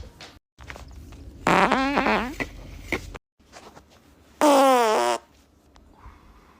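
Two loud farts about three seconds apart, each lasting roughly a second. They are pitched and squeaky; the first wavers up and down before sliding lower, and the second falls steadily in pitch.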